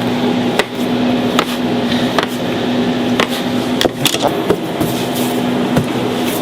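Steady hum of a kitchen machine running, with irregular sharp clicks and knocks of utensils and trays being handled during bakery food preparation.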